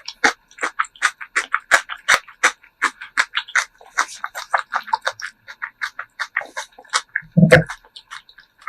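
Close-miked chewing and eating: a rapid run of short, crunchy, wet mouth clicks, about three to four a second, with one longer, deeper sound about seven and a half seconds in.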